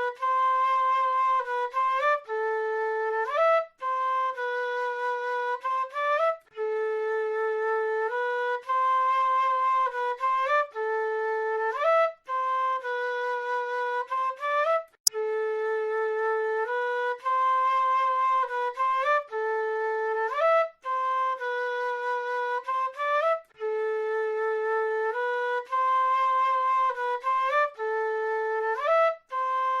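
A South American flute playing a slow melody of held notes, with quick upward slides between them, in short phrases separated by brief pauses. A single sharp click about halfway through.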